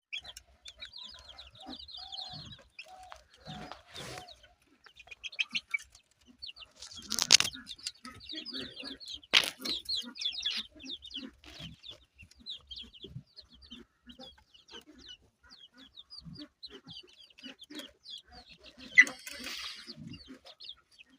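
A flock of chickens clucking, with a steady run of many short, high, quick peeping calls over lower clucks. A few sharp, loud noises stand out, the loudest about 7 and 19 seconds in.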